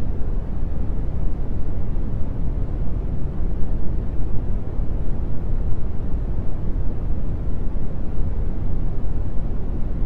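Synthetic brown noise: a steady, deep rumbling hiss, strongest in the bass and falling away toward the treble, with no change in level.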